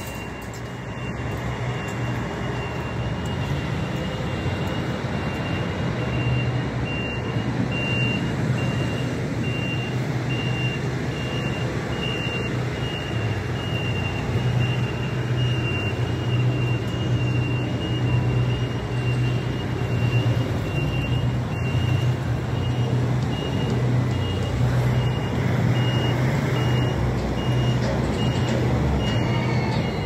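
Reversing alarm on construction machinery beeping at a steady, even pace, over the low, steady running of a heavy machine's engine that grows louder about six seconds in.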